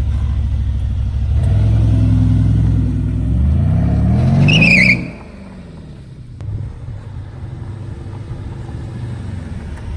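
Mercedes-Benz SL550's 4.7-litre twin-turbo V8 revving with its exhaust sound management in the loud setting. The engine note climbs in pitch to a peak about five seconds in, then drops suddenly back to idle. A short, high, wavering whistle sounds just before the drop.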